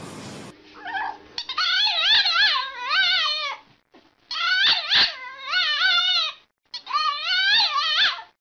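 A dog howling in three long, high-pitched calls whose pitch wavers quickly up and down, with short breaks between them.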